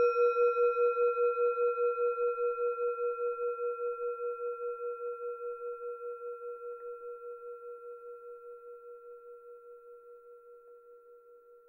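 A Buddhist bowl bell (singing bowl) rings on after a single strike, with a clear tone that wobbles in loudness about four times a second and slowly fades. Rung to close the talk.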